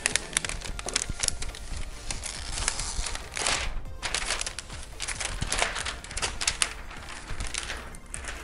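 Thin clear plastic sleeve crinkling and rustling as a laptop is slid out of it, with many small clicks and a few louder swells of rustling.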